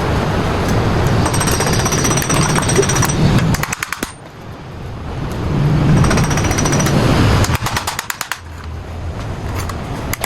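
A hammering power tool working on metal in two long bursts, the first about four seconds and the second about two, with a quieter rapid rattle between them and after.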